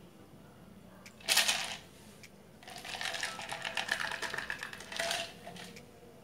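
Ice water poured from a plastic jug into a plastic blender chopper bowl, with ice cubes clinking: a short splash about a second in, then a longer pour from about two and a half to five seconds in.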